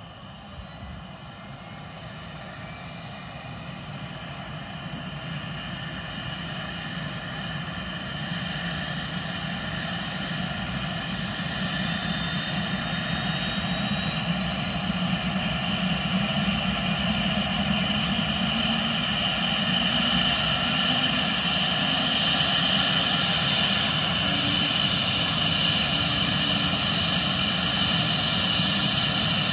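Airbus H145 helicopter's twin turboshaft engines starting up: a steady turbine whine of several tones over a low rumble, growing steadily louder as the engines and rotor spin up.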